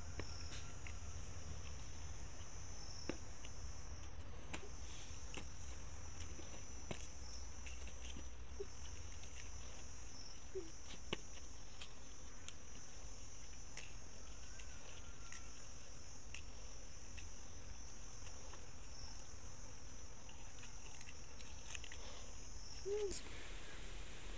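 Insects chirring in a high, steady drone that cuts off near the end, over a low steady rumble. Occasional small clicks and snaps come from pumpkin-leaf stems being broken and peeled by hand.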